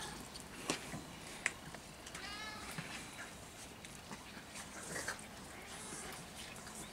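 A cat meows once, about two seconds in, in a short rising-and-falling call. Two sharp clicks come before it, the second being the loudest sound.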